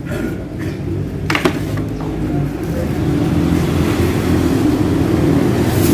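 A motor vehicle engine running close by, a low steady rumble that grows a little louder after the first couple of seconds, with a couple of sharp knocks about a second and a half in.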